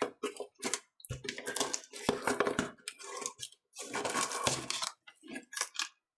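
Parcel packaging being opened by hand: irregular tearing and crinkling of tape and wrapping.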